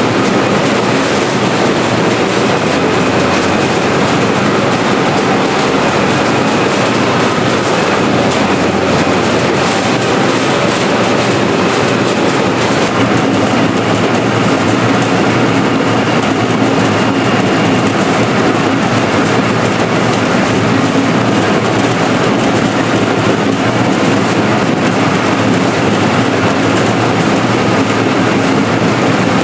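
Seed potato cutter running: its belt-and-pulley drive, conveyor and bladed rollers turning with a loud, steady mechanical rattle and the clatter of potatoes tumbling through and dropping as cut pieces.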